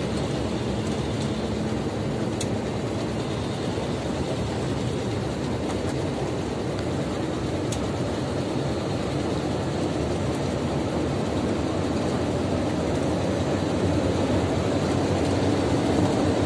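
Steady engine and road noise of a lorry heard from inside its cab while it drives along a highway at speed.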